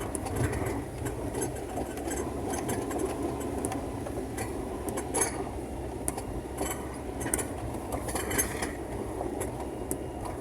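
Vehicle driving along a rough road, heard from inside the cabin: a steady low engine-and-road rumble with scattered clinks and rattles.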